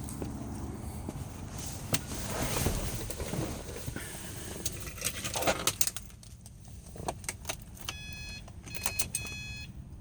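2011 Subaru WRX engine idling with a low, steady hum, under scattered clicks and a jangle of keys. From about eight seconds in, an electronic chime beeps repeatedly in short bursts.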